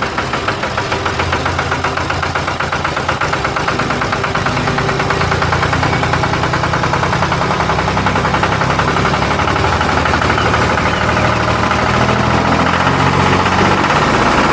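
Tractor engine running steadily with a rapid, even pulse, growing a little louder over the first few seconds.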